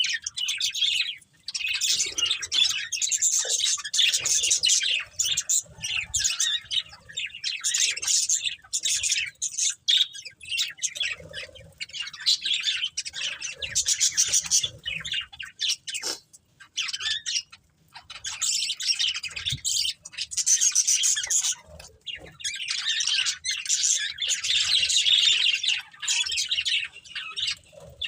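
Budgerigars chattering and chirping in rapid warbling bouts with occasional harsher squawks, pausing briefly a few times.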